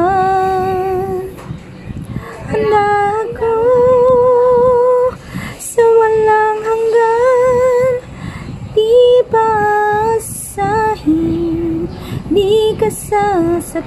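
A woman singing unaccompanied, a slow ballad sung in phrases of held, wavering notes with short pauses for breath between them, over a low background rumble.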